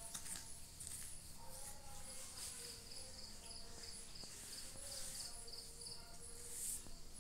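Insects chirping. A steady high chirp repeats two to three times a second, and a lower pulsing trill joins it for a few seconds in the middle.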